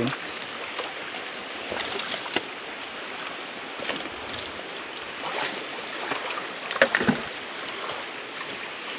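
Shallow creek water running steadily over rocks, with a few short knocks about two seconds in and again around seven seconds.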